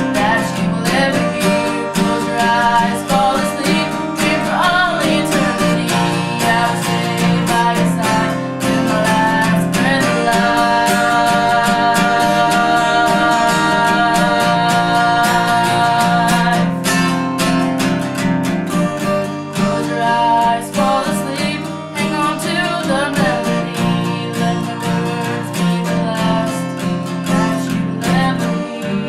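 An acoustic guitar strummed with a singer's voice over it: a slow song.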